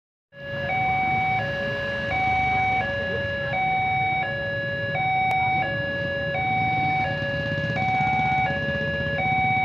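Railway level-crossing warning alarm sounding a steady electronic two-tone signal, alternating between a lower and a higher note each held just under a second: the warning that a train is approaching and the barrier is closed. Beneath it is the low rumble of motorcycle engines idling at the crossing.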